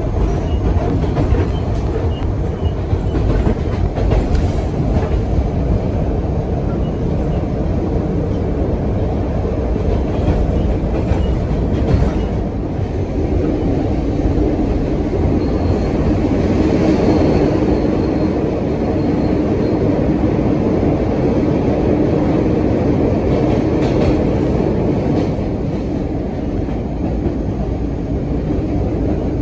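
MBTA subway train running, heard from inside the operator's cab: a steady rumble of wheels on rail with scattered clicks over the rail joints. About halfway through, a steady motor hum rises in and holds.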